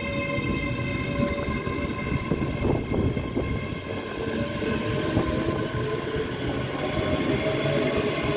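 Two coupled ScotRail Class 385 electric multiple units pulling out of the station, their traction equipment giving a steady high electric whine over the rumble of wheels on the rails.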